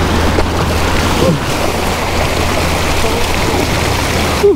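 Waves washing over and splashing against the rocks of a jetty, with steady wind rumble on the microphone.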